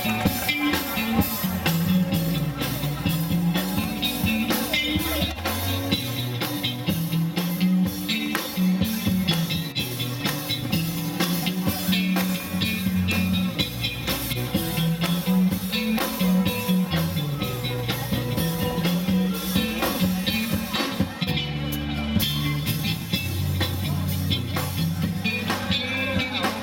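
Rock band playing: electric guitars over a moving bass line, with a drum kit keeping a steady beat.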